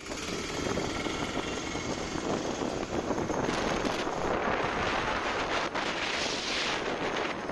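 Road traffic noise with wind buffeting the microphone, and a vehicle swelling past about six seconds in.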